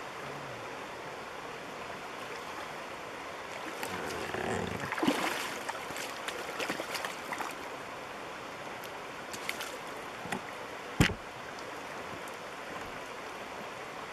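Shallow river running over rocks, with splashing about four to seven seconds in as a hooked Atlantic salmon is landed by hand in the shallows, and a single sharp knock about eleven seconds in.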